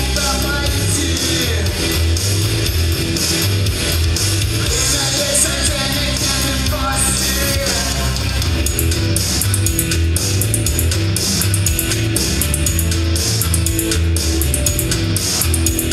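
Upbeat rock song played live: a man sings and strums an electric guitar over a steady bass line and drum beat.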